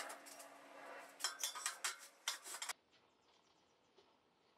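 Square steel tubing set down and shifted on a steel welding table, making a run of light metallic knocks and clinks. These stop about three seconds in, leaving faint room tone.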